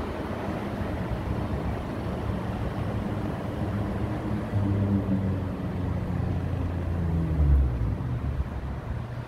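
City street traffic, a steady rumble of vehicle engines. A louder engine builds from about halfway through and peaks about three-quarters of the way in.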